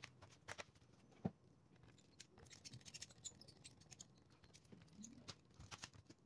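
Faint clicks and light taps from hands handling a laptop's bottom cover and a precision screwdriver working its screws, with one sharper click about a second in.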